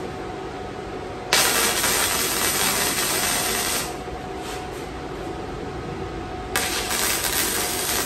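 Arc welder crackling and hissing in two runs: one of about two and a half seconds starting about a second in, and another starting near the end. The welder is burning nuts onto the steel frame.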